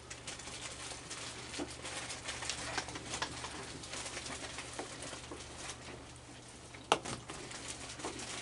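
Several raccoons eating dry food and treats, with many small crunching and clicking sounds and a sharper click about seven seconds in.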